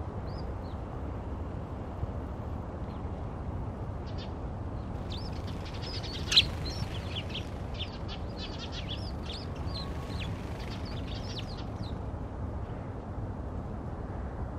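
A flock of Eurasian tree sparrows chirping as they settle to roost at dusk. The chirping is thickest in the middle, with one loud sharp note about six seconds in, over a steady low rumble.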